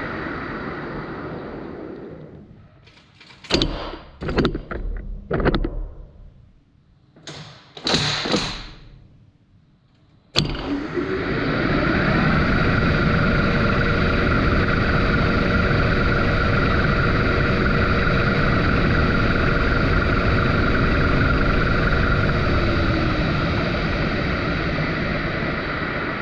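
Metal lathe running, then winding down to a stop. A series of clunks and knocks follows while the spindle speed is changed from 900 to 1120 rpm. About ten seconds in, a sharp click, and the lathe spins up with a rising whine and runs steadily.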